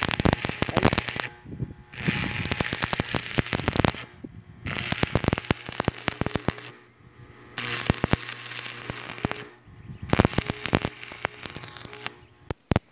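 Stick (arc) welding on steel plate: the electrode arc crackling and sizzling in about five runs of a second or two each, separated by short pauses, with a low hum under each run.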